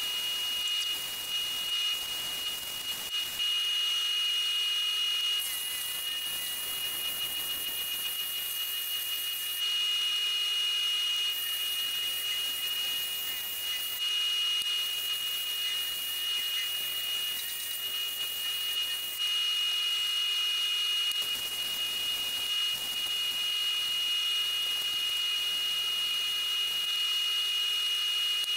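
Wood lathe running with a steady high whine, while a small turned piece is worked on it; stretches of hiss start and stop several times as the spinning wood is cut or sanded.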